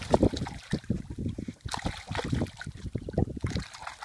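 A large jack thrashing at the surface beside a boat, throwing up a run of irregular splashes as it is gripped and held, with the loudest splash just after the start.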